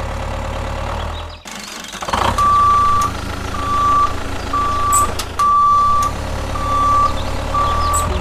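Truck reversing alarm beeping about once a second, six beeps starting a couple of seconds in, over a steady low engine rumble.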